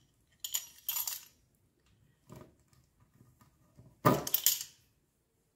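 Metal fluted pastry wheel rolling along the edge of thin rolled sesame dough on a board, trimming it in short scraping strokes, twice in the first second and once faintly later, then a louder knock about four seconds in.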